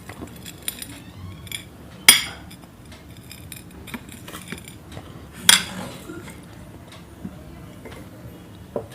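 Hard objects clinking: two sharp clinks about three and a half seconds apart, each ringing briefly, with small light ticks and taps between them.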